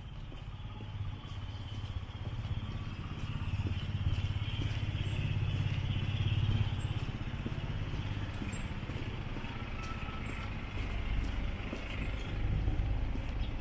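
A motor vehicle passing on a street: a low engine rumble that grows to its loudest about halfway through and then eases off, with another swell near the end.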